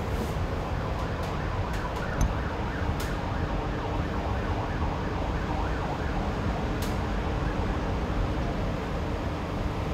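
Kawasaki light rail car running on its track, heard from inside the trailer car: a steady running rumble with a few sharp clicks about two and three seconds in and again near seven seconds, and a faint steady hum in the second half.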